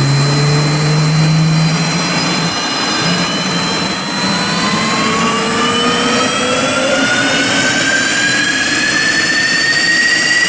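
Dassault Rafale's twin Snecma M88 turbofans spooling up on the ground, a loud jet whine rising steadily in pitch.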